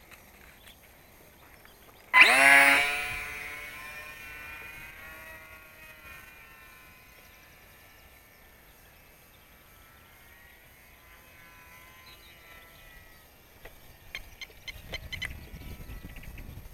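RC plane's motor and propeller, with a sudden whine about two seconds in that sweeps up in pitch, then fades slowly over several seconds. Scattered clicks and a low rumble follow near the end.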